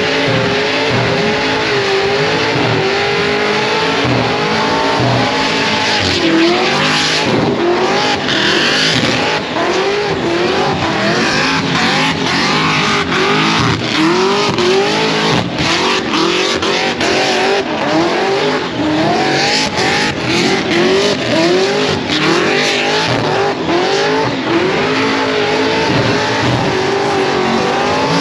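A car doing a burnout: its engine is revved hard with the pitch rising and falling over and over, while the spinning tyres squeal continuously.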